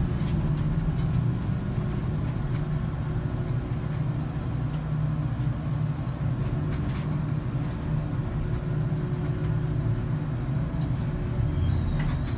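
Steady low drone of a mining power shovel's machinery, heard from inside the operator's cab, with a few faint clicks. A short high-pitched tone sounds near the end.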